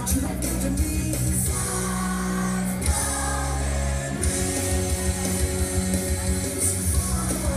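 Young children singing a Christmas song along with instrumental accompaniment that has a steady bass line.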